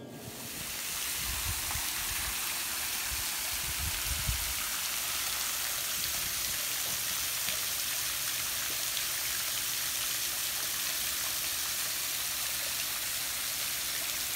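Pool cooling sprayers, fire-hose nozzles on PVC return lines, spraying arcs of water that fall onto the pool surface: a steady, rain-like hiss and patter. The sprayers are running below full pump power. Some low rumbling comes through in the first few seconds.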